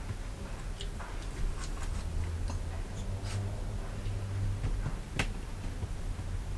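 Cats moving about a fabric cat tunnel on a wooden floor: scattered light ticks, taps and rustles, with one sharper click about five seconds in, over a steady low hum.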